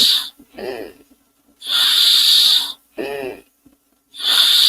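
A person imitating a steam engine with their mouth: loud hissing exhalations, each about a second long, alternating with short voiced hoots that rise and fall in pitch. The pattern repeats about every two and a half seconds.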